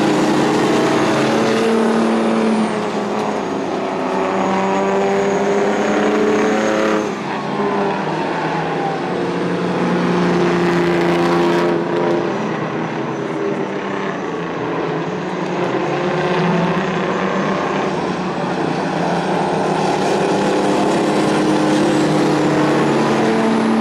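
Several racing semi-truck tractors running hard under throttle in a pack. Their engine notes rise and fall in pitch as the trucks pass and pull away.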